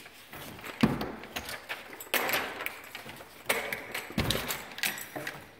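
Back door to the yard being unlocked and opened, with clicks and rattles and two dull thumps, about a second in and about four seconds in.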